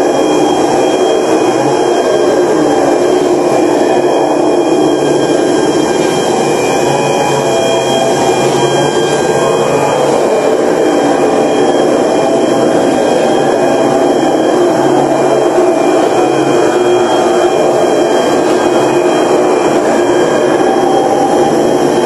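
Loud, steady, dense mechanical-sounding drone from a composed soundscape, with a few faint held tones above it and slow wavering glides in its middle range.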